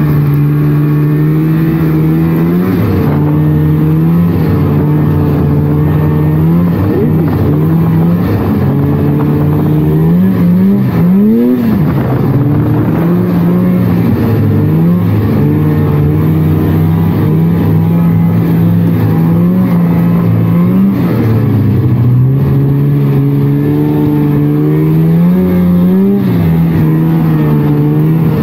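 1999 Polaris trail snowmobile's two-stroke engine running under way, its pitch rising and falling with the throttle. There is a quick rev up and back down about eleven seconds in, and another rise a little before the end.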